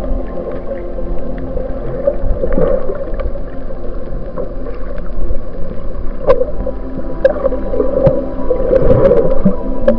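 Ambient background music laid over the footage, built of low sustained drone tones with underwater ocean sounds, with scattered sharp clicks in the second half.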